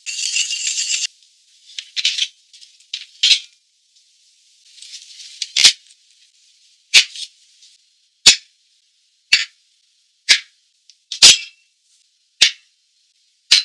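A short burst of hiss as the steamer lid comes off, then a series of about ten sharp clacks, roughly one a second, of hard things being set down on the table.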